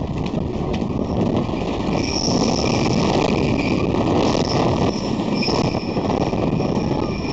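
Cyclone wooden roller coaster train running along its track: a loud, continuous rattling clatter of the cars and wheels, with intermittent high-pitched squeals of the wheels from about two seconds in.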